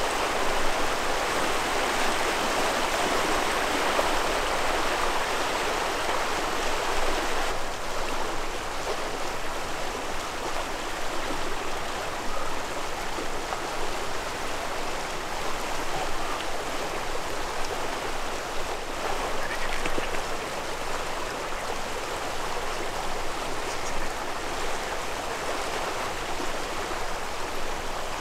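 Fast-flowing river water rushing steadily, slightly softer after about seven and a half seconds.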